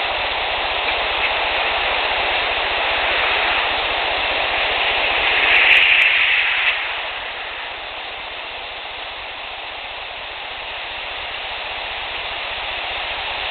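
A swelling 'shooop' whoosh, likened to a car door closing, builds from about four seconds in and cuts off suddenly with a short knock about a second and a half later. A steady hiss of distant highway traffic lies under it throughout.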